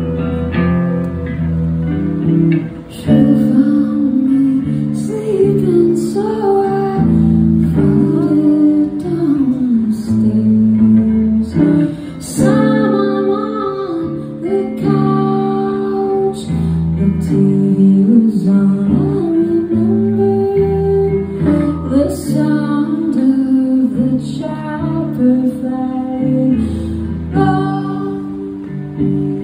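Live rock band playing: electric guitar and drums, with a woman's lead vocal coming in about three seconds in.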